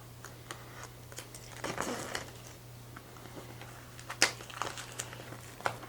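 A trading-card hobby box and its packaging being handled and opened by hand: scattered clicks and crinkling, a short burst of rustling about two seconds in and a sharp snap a little past four seconds.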